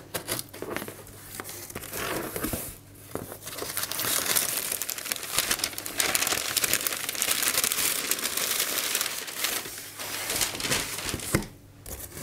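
Utility knife slitting the packing tape on a cardboard box, then the flaps pulled open and crumpled newspaper packing rustled and lifted out, a dense crinkling that is loudest through the middle and latter part and stops shortly before the end.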